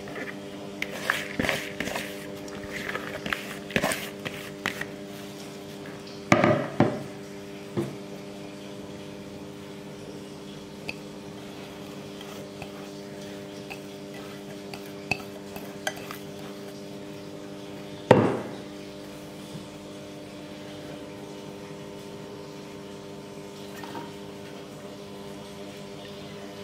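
Kitchenware clinking and knocking: a serving bowl and a china plate tap against a pan as ingredients are tipped in. There are clusters of light clinks in the first five seconds, and two louder knocks with a short ring at about six and a half and eighteen seconds. A steady hum of several tones runs underneath.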